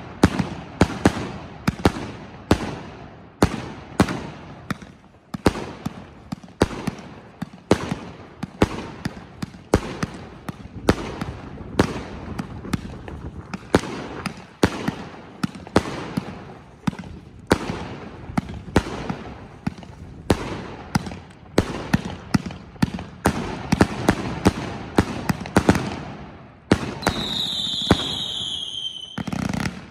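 A multi-shot firework cake, the Enigma CIG5008 with 186 shots from 20, 30 and 45 mm tubes, firing shot after shot in quick succession: sharp launch thumps and bursting stars with crackle. Near the end a high whistle falls in pitch for about two seconds.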